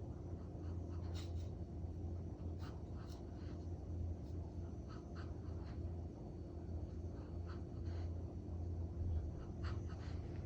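Sleeping border collie snoring and breathing noisily, a steady low rumble with short faint snuffles scattered through it.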